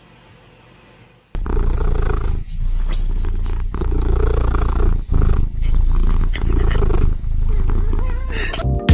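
Cat purring loudly right at the microphone, starting suddenly about a second in, in rhythmic cycles of about a second each.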